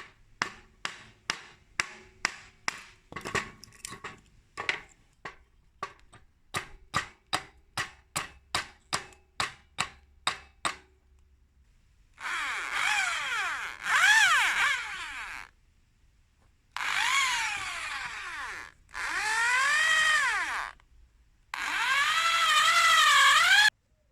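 Woodworking sounds: about twenty sharp knocks at roughly two a second, then four bursts of a tool working the wood, each a few seconds long, with a whining pitch that rises and falls.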